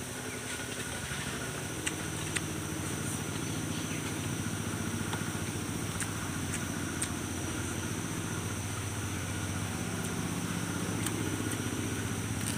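An engine running steadily, a little louder after the first few seconds, with a few sharp clicks.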